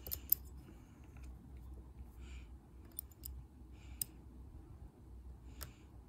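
Dimple pick and tension wrench working in the keyway of a brass Burg-Wächter dimple padlock: faint metal scraping with a few sharp light clicks as the pins are probed, the sharpest about a third of a second in. A faint steady low hum sits underneath.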